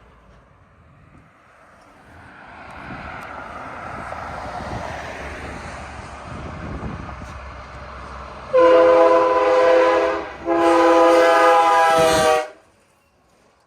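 A train's rumble builds as it approaches, then its locomotive air horn sounds two blasts, a shorter one and then a longer one, each a chord of several notes at once. The sound cuts off suddenly right after the second blast.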